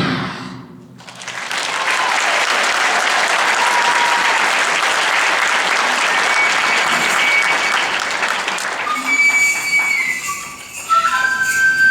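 Audience applauding for about eight seconds. As the applause fades, a high flute starts playing held notes that step up in pitch.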